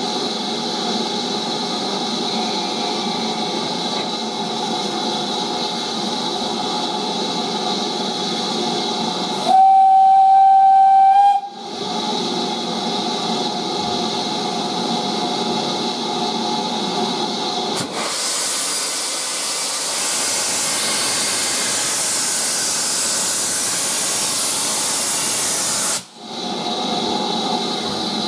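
Steam locomotive standing with steam hissing steadily. About a third of the way in, its steam whistle sounds once, a single clear note for about two seconds. Later a much louder, sharper hiss of escaping steam runs for about eight seconds and stops suddenly.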